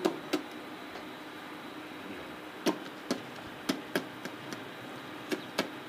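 About nine sharp taps and clicks at irregular intervals, bunched in the second half, over a steady faint hum.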